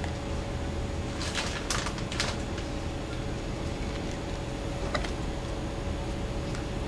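A few short rustles and light clicks of food being put onto paper plates by hand, a cluster about a second in and one click near five seconds, over a steady background hum.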